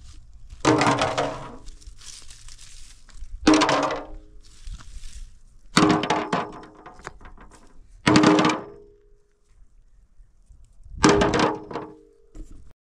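Five heavy knocks, about two to three seconds apart, each ringing briefly after the hit, with fainter rustling between them.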